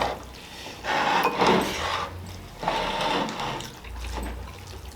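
Close-up wet eating sounds: rice and fish curry broth being mixed and eaten, in three short bursts.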